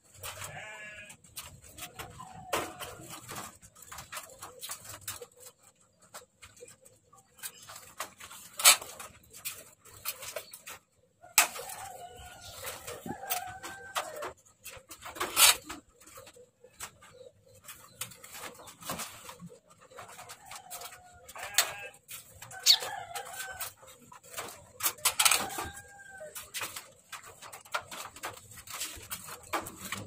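Clicks and knocks of a wooden sliding door and wire mesh on a bird aviary as small birds are let in, with scattered farm-animal calls in the background.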